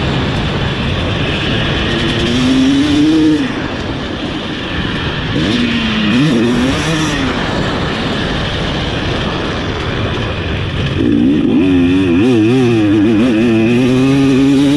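Husqvarna TC250 single-cylinder two-stroke motocross engine heard from on the bike, revving up and falling back as the rider works the throttle. Its pitch climbs twice in the first half, then wavers rapidly up and down near the end.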